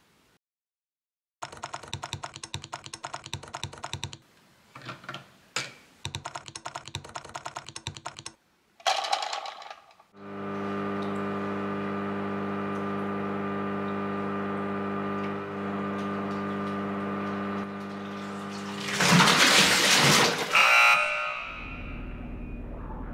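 Rapid clicking for several seconds. Then a water pump runs with a steady hum as it fills the aquarium tank. About 19 seconds in comes a loud rush of water as the LEGO dam gives way, settling to a low rumble near the end.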